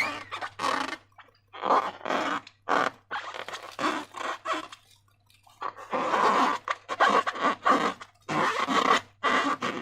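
Slime being squeezed and worked by hand, a run of irregular wet squelches and crackles with a short pause about halfway through.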